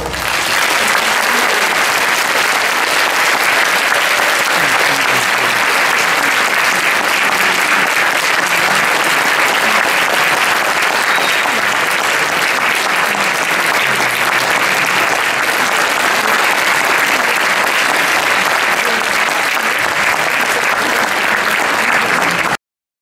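Concert-hall audience applauding steadily after the band's final chord, until the sound cuts off suddenly near the end.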